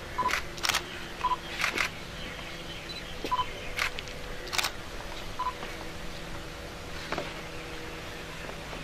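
Camera shutters clicking several times in the first five seconds, with four short electronic beeps in between, over a steady low hum.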